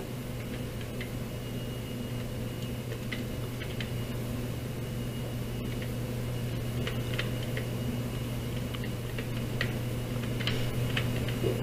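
Computer keyboard keys clicking in short, irregular runs as a command is typed, over a steady low hum.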